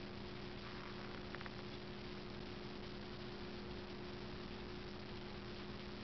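Quiet steady electrical hum over a faint hiss, with a couple of faint ticks about a second and a half in.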